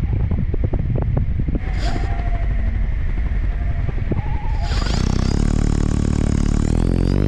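Paramotor in flight: a steady rumble of wind buffeting the microphone over the running motor and propeller. Music fades in about five seconds in.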